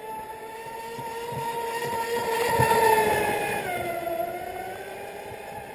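Brushless-electric RC racing catamaran running flat out past the listener: a high motor-and-propeller whine that grows louder toward the middle, then drops in pitch about three and a half seconds in as the boat goes by and fades away, with a hiss of spray at its closest.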